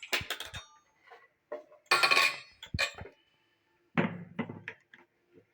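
Clinks and clatter of a small mixer grinder's steel jar and parts being handled and fitted onto its base, with a louder clattering burst about two seconds in and another about four seconds in.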